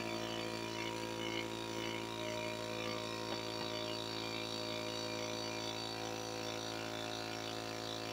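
Steady mechanical drone of a running motor: a cluster of constant tones that hold one pitch throughout.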